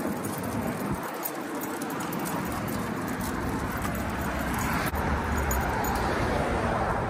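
Street traffic passing, with the footfalls of a large pack of leashed dogs walking on a concrete sidewalk. The traffic swells a little about five seconds in.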